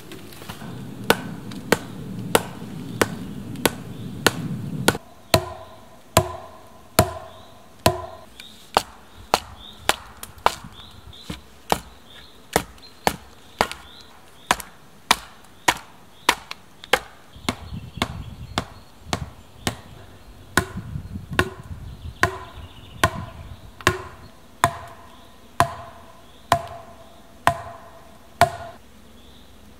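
Knife blade chopping into a small wooden pole laid on a tree stump: a long, even run of sharp chops, about one and a half a second, many with a short ring after the stroke.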